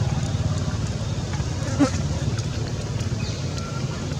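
Steady low rumble of an engine running, with one short squeal that slides up and down in pitch a little under two seconds in, a baby monkey calling for its mother.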